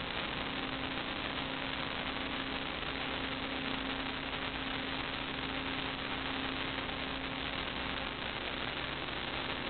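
Steady electrical hiss with a low, steady hum and no other events, the background noise of a sewer inspection camera's recording.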